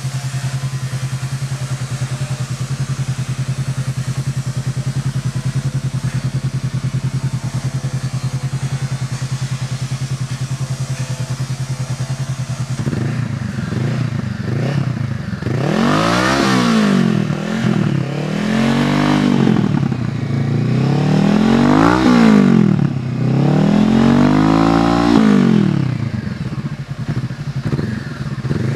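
Honda CB500X's parallel-twin engine idling through a Hurricane Evolution F4 aluminium slip-on exhaust, then revved four times from about halfway in, each rev climbing and dropping back, before settling to idle again near the end.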